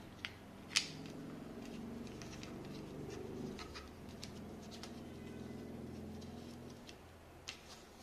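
Plastic clicks and taps from a phone-holder clamp being fitted onto a tripod's quick-release plate and the tripod head's knob being handled, with one sharp click a little under a second in and smaller clicks scattered after it.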